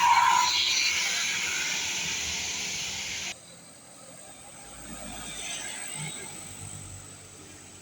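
A large road vehicle passing close by, its noise loudest at first and fading away, then cutting off suddenly about three seconds in. After the cut another vehicle passes more faintly.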